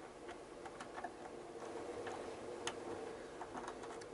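Faint, irregular clicks and ticks of a hand screwdriver turning a small screw into a plastic motorcycle side panel.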